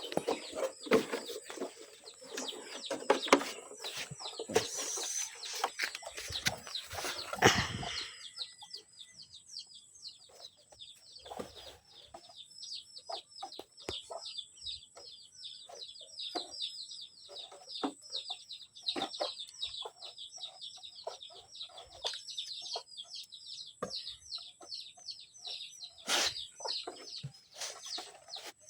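Plastic motorcycle body panels being handled and put back on, clattering and knocking for the first eight seconds or so. After that, small birds chirp quickly and steadily, several short falling notes a second, with now and then a click.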